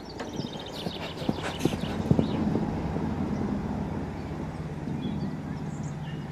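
A pony's hoofbeats cantering on the sand arena, irregular knocks loudest about two seconds in, with a steady low hum coming up under them.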